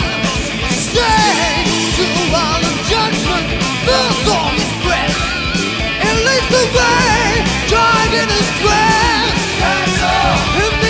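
Hard rock band recording playing, with drums, a dense full-band backing and a lead melody wavering in pitch.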